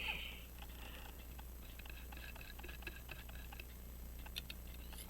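Faint small metallic clicks and taps of watchmaking tools handling a pocket-watch balance during staff replacement, with a brief metallic chink at the start, over a steady low electrical hum.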